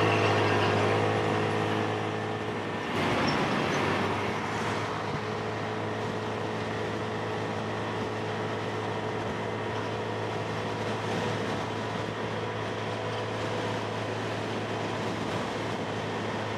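Motorcycle engine running steadily on the move, its low hum under a continuous rush of riding noise, with a brief louder swell about three seconds in.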